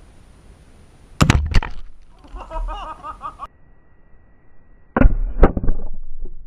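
Two or three sharp cracks about a second in, then a sudden loud blast about five seconds in: a pressurised plastic soda bottle of elephant-toothpaste foam, shot with a BB gun, bursting and spraying foam over the camera up close.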